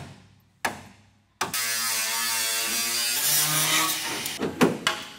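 Three sharp metal clanks, then a handheld corded grinder running steadily against a car's bare steel body shell for about three seconds, followed by a few more sharp knocks near the end.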